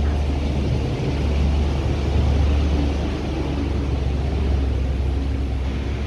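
Steady low rumble with general outdoor background noise.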